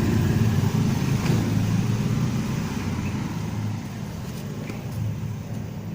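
A motor vehicle's engine running, a low steady hum that fades away over the last couple of seconds.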